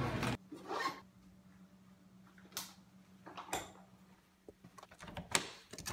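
Background music cuts off a fraction of a second in. After that comes a quiet room with a faint steady hum and a few scattered rustles and light knocks as things are taken out of a bag.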